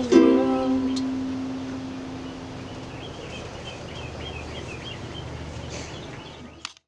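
Final chord strummed on an Amahi ukulele, ringing out and fading over a couple of seconds as the last sung note dies away. Faint bird chirps follow in the background before the sound cuts off near the end.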